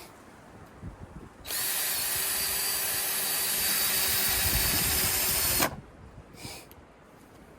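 Drill driving a screw into a treated-lumber fence picket, running steadily for about four seconds and stopping suddenly.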